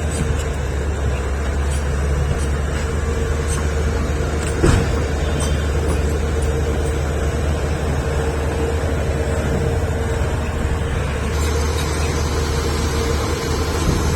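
Heavy excavator's diesel engine running steadily with a low drone, and a single sharp clank about five seconds in.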